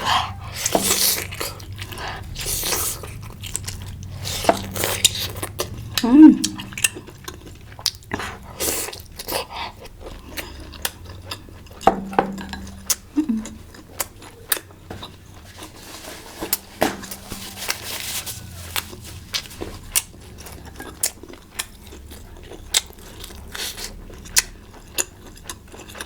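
Eating hotpot: utensils clicking and tapping against a bowl, with chewing and a few short swishing mouth sounds.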